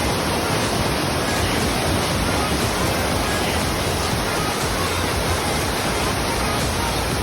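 Waterfall pouring: a steady, unbroken rush of falling water at an even level throughout, from Mossbrae Falls.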